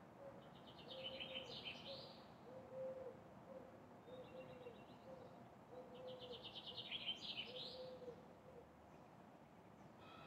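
A songbird singing two phrases, each a quick trill that falls in pitch and ends in a rising flourish, about a second and about six seconds in. Beneath it a low soft note repeats roughly every second over faint city noise.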